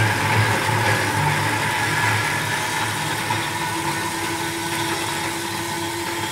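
Food waste disposer under a stainless steel sink running with a steady motor hum, with tap water pouring into the drain. A higher steady note joins about three seconds in.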